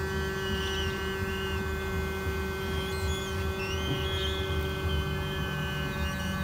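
Hot-air rework station blowing steadily with an electrical hum, heating the underside of a phone circuit board to melt the solder holding a SIM card socket.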